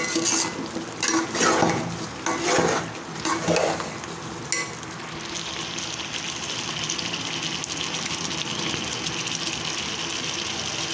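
A spoon stirring and scraping through a pot of chicken and potatoes four or five times, then a steady sizzle and bubble as the last of the cooking liquid boils off.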